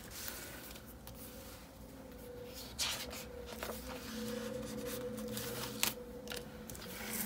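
Paper sticker sheets and a plastic sticker-book sleeve being handled on a wooden table, rustling with a few sharp crinkles, and a sticker being peeled off its sheet. A steady faint hum runs underneath.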